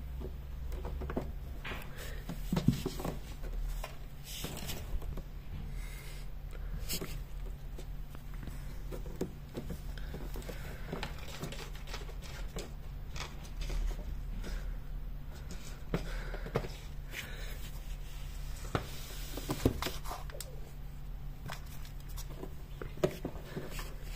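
A cat's claws scratching and plucking at the sisal rope of a scratching post: irregular rasping scratches and small clicks, with a few sharper knocks, over a steady low hum.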